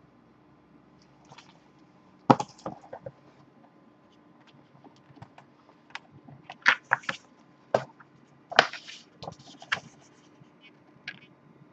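Hands handling a laserdisc box set's cardboard jacket and paper booklet: scattered clicks, taps and short paper rustles. The loudest come about two seconds in and in a cluster between about six and ten seconds.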